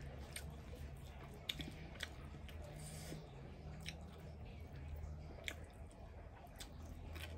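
Faint close-up chewing with soft mouth clicks, and the squish of fingers working rice and food by hand, over a steady low hum.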